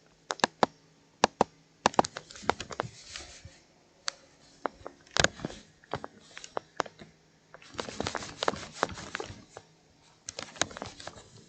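Typing on a computer keyboard: irregular runs of quick key clicks with short pauses, densest in a burst of rapid clicks about eight seconds in.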